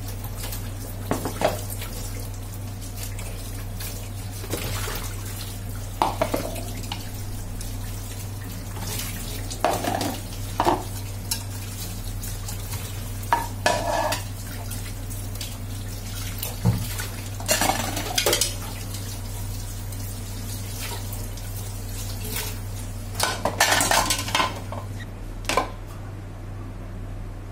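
Plastic dishes knocking and clattering against each other and the stainless steel sink as they are rinsed under a running tap, in scattered short bursts over a steady splash of water. Near the end the water stops.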